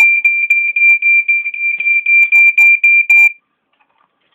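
Smoke alarm sounding a continuous shrill high tone, set off by deodorant spray, its sounder partly covered with tape. The level wavers, then the tone cuts off a little over three seconds in.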